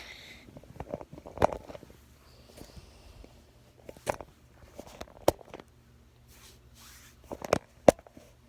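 Handling noise: scattered taps, knocks and clicks of small objects being picked up, moved and set down, with a few sharper knocks, the loudest about five seconds in and near the end.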